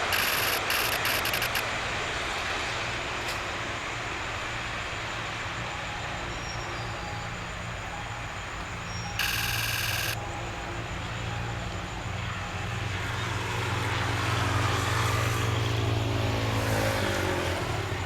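Diesel-hauled passenger train running, with a steady low hum and rumble. A loud one-second burst sounds about nine seconds in, and a pitched engine note slides and changes near the end.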